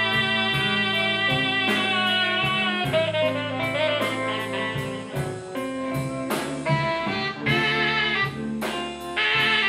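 Live blues band playing a slow West Side Chicago blues, with a saxophone holding long notes over drums and a steady cymbal beat.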